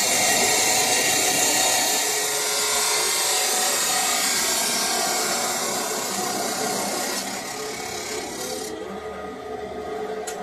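Electric abrasive cut-off saw grinding through a round steel bar, a loud harsh hiss. The grinding thins about seven seconds in and stops about nine seconds in as the wheel is lifted out of the cut.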